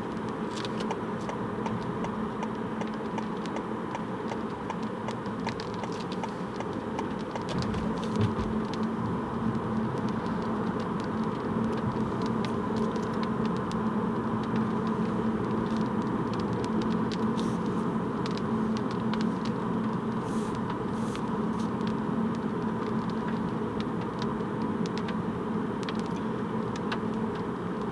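Steady road and engine noise of a car being driven, heard from inside the cabin, with a constant low hum and a few faint ticks.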